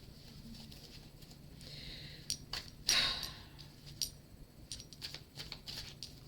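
Tarot cards being handled: a run of sharp clicks and taps, with a brief swishing riffle about three seconds in.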